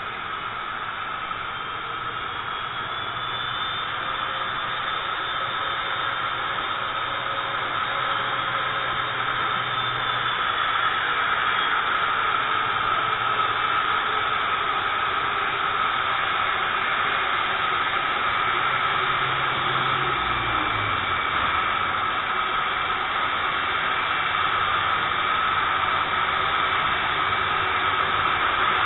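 Jet engines of a British Airways Boeing 747-400 (Rolls-Royce RB211s) at taxi power as it rolls in toward the gate: a steady high whine over a rushing noise that grows gradually louder. A low hum drops in pitch about twenty seconds in.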